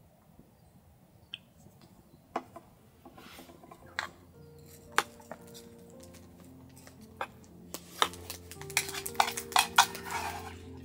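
Scattered clinks and taps of tableware and cooking utensils, getting busier and louder toward the end, with a short hissing rush near the end. Soft background music with sustained notes comes in about four seconds in.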